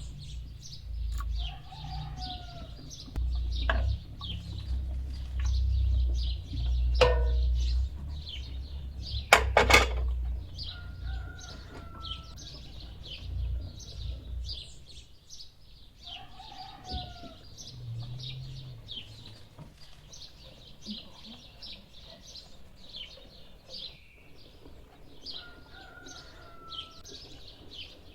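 Small birds chirping steadily, with a few short falling calls among them. Several sharp knocks fall in the first ten seconds, the loudest about ten seconds in.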